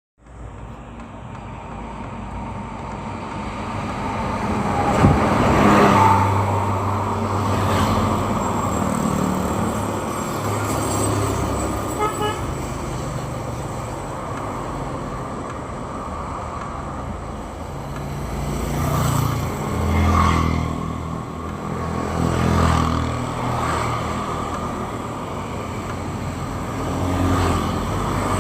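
Road traffic: cars and motorbikes driving past one after another, each one swelling and fading over a continuous rumble, with a vehicle horn tooting.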